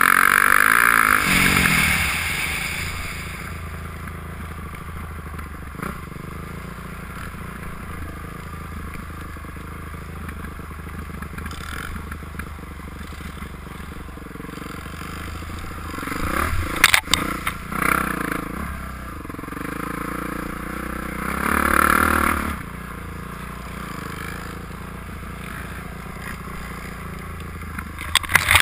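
Dirt bike engine running and revving as the bike rides a rough trail, loudest near the start and surging again several times later. A cluster of sharp knocks comes about two thirds of the way through, and brush scrapes against the bike near the end.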